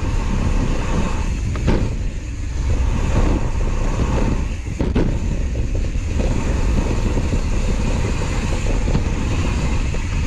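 Wind rushing over the microphone and knobby-free gravel tyres rolling over a dirt trail as a gravel bike is ridden, a steady low rumble with a couple of short knocks and rattles from the bike about two and five seconds in.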